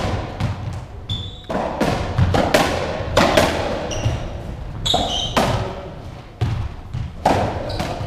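Racketball (Squash 57) rally: the hollow rubber ball is struck by rackets and hits the walls and floor, a quick string of sharp hits echoing around the court. Trainers squeak briefly on the wooden floor about a second in and again around the middle.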